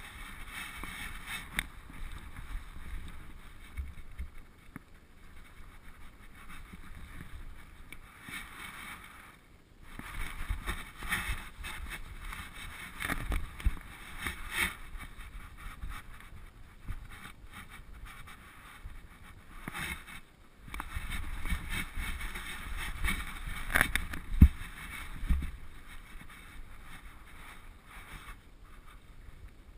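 Rumbling, rustling noise from a GoPro mounted on a dog's harness as the dog moves about: fur and straps rubbing against the camera case, with a few sharp knocks, the loudest near the end.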